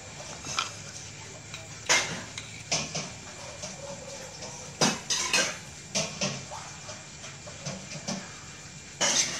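A spoon clinking and tapping against metal kitchenware as sugar is spooned over fried chunks in a stainless-steel mesh strainer: irregular sharp clinks, several in all, with quieter rustling between.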